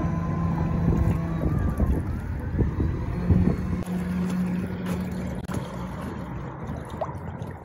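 PacMotor battery-powered canoe motor running with a steady low hum over wind and water noise. The hum breaks off about a second and a half in, returns for a couple of seconds a little past the middle, then drops away, and the sound grows quieter toward the end.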